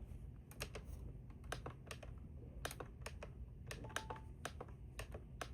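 Buttons on a Maxx digital weather radio being pressed over and over while scrolling through its settings menu, a string of quiet clicks at an uneven pace, with one short faint beep about four seconds in.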